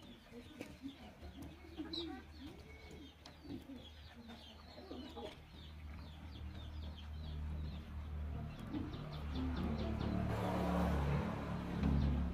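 Chickens clucking, with small birds chirping high above them. In the last few seconds a louder steady rushing noise with a low hum builds up and covers them.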